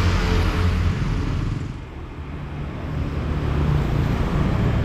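Road traffic passing close by on a busy street, with engines running. It eases off briefly about two seconds in, then builds again as more vehicles come past.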